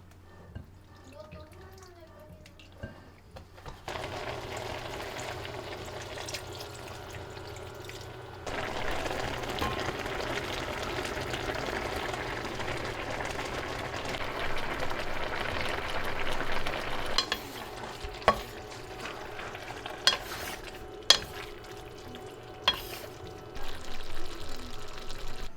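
Food sizzling in a frying pan. The sizzle starts about four seconds in, grows louder from about eight seconds and eases off in the second half, where a utensil clicks sharply against the pan a few times.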